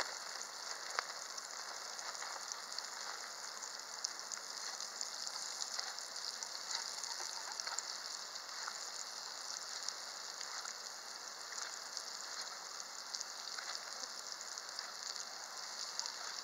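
Hot oil sizzling steadily in a cast-iron skillet frying battered green tomato slices, with scattered small pops and crackles.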